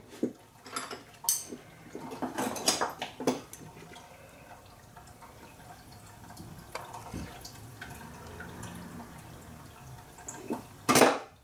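Metal hand tools clinking and clattering as they are handled during engine-bay work. There are several sharp clinks in the first few seconds, then a quieter stretch, and one brief louder clatter near the end.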